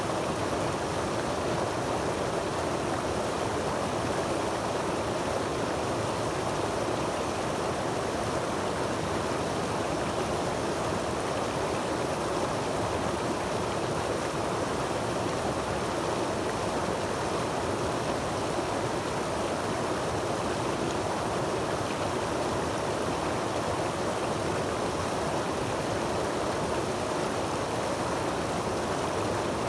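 Creek water falling over rocks in a small cascade and rushing through a rocky channel: a steady, even rush of running water.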